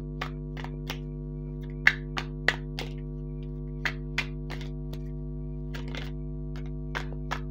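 A deck of tarot cards being shuffled by hand: irregular taps and slaps of cards, the loudest a couple of seconds in, over a steady low hum.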